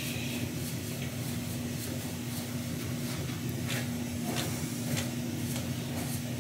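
Faint, irregular clicks from the pad spools of a Kelmar 35 mm film cleaner being rewound by hand, over a steady low hum.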